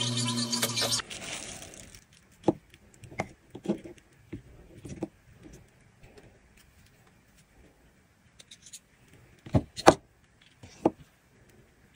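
A small motor humming steadily, switched off about a second in, followed by scattered light knocks and clicks of tools and small parts being handled on a workbench, the loudest a pair near the end.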